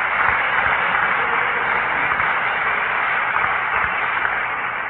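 Audience applauding, a dense, steady sound of clapping that thins out a little near the end.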